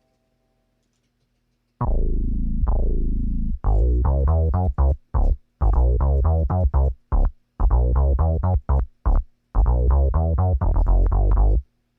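A synthesized bass line of short, punchy notes in a syncopated rhythm, each note with a falling filter sweep, starting about two seconds in after silence.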